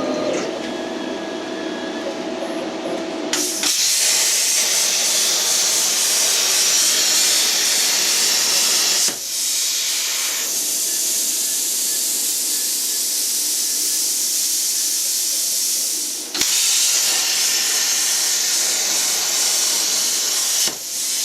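Plasma cutter cutting metal: a loud, steady hiss of the cutting arc and air, starting about three seconds in after a low steady hum, with brief breaks about nine seconds in, again near sixteen seconds and near the end.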